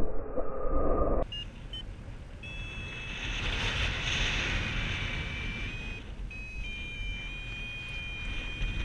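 Wind rushing over the helmet camera in flight, with a continuous high electronic tone that holds and then steps in pitch a few times, typical of a paragliding variometer's tone. The first second is louder and muffled, with a steady lower hum, and ends abruptly.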